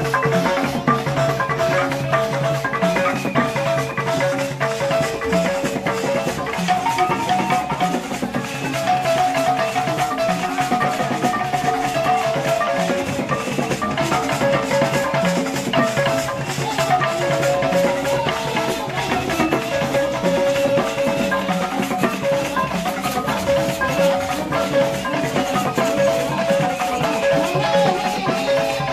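A large wooden balafon (log xylophone) struck with mallets by several players, playing a fast, repeating melodic pattern of short wooden notes over other percussion.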